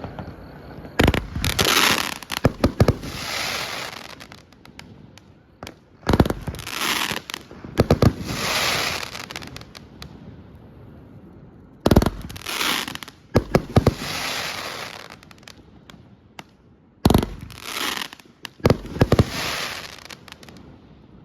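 A 25-shot, 500-gram consumer firework cake firing in four waves about five seconds apart. Each wave has sharp launch reports, then the shells burst into a crackling hiss lasting a second or two.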